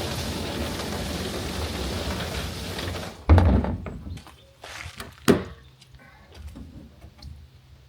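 Water rushing steadily in a plastic IBC rainwater tank being rinsed out, cutting off about three seconds in. A heavy thunk follows, then a sharp knock about two seconds later and a few light clicks.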